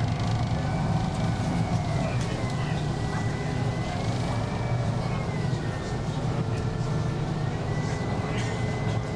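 Steady low drone of an Uber Boat water taxi's engines under way, with a thin high whine that slowly wavers up and down in pitch.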